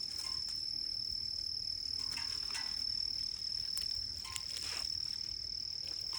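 A chorus of insects in summer vegetation makes a continuous, steady, high-pitched drone, with a few faint rustles and clicks.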